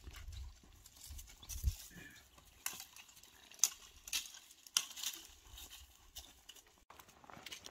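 Footsteps crunching through dry brush and dead leaves, with scattered sharp crackles and snaps of twigs, and a low rumble of wind or handling on the microphone in the first two seconds.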